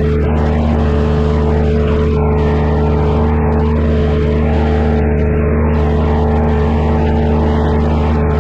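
Engine of a compact earthmoving machine running steadily at constant speed, close and loud, with an even hum.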